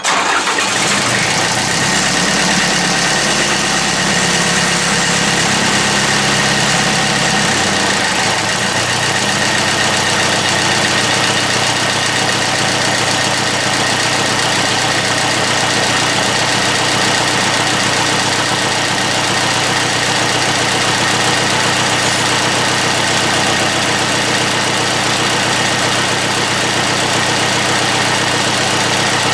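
Mitsubishi D1650 compact tractor's diesel engine starting and running steadily; about seven seconds in, its note drops as it settles to a lower idle.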